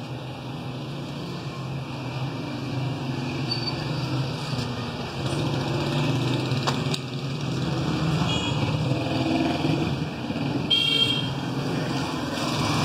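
An engine running steadily with a low hum that grows louder about halfway through. Short horn toots sound about eight and eleven seconds in.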